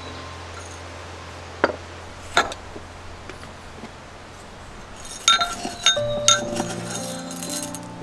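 Light clinks and knocks of small hard objects: two single knocks, then a quick run of ringing clinks in the last few seconds, over soft background music.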